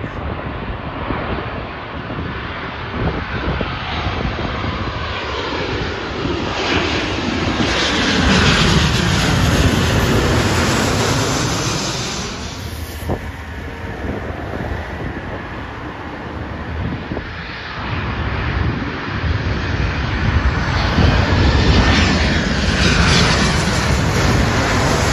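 Two Boeing 737 airliners flying low overhead one after another on final approach with landing gear down. The jet engine noise swells to a peak about ten seconds in, eases off, then swells again near the end, with a sweeping shift in pitch as each jet passes.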